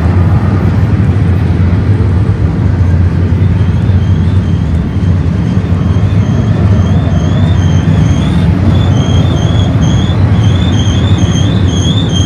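Double-stack intermodal well cars of a BNSF freight train rolling past: a loud, steady, heavy rumble of steel wheels on rail. A high wavering wheel squeal joins about three seconds in and keeps on.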